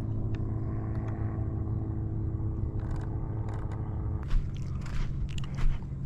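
A steady low rumble, then from about four seconds in, footsteps walking over dry, cracked lakeshore mud scattered with sticks.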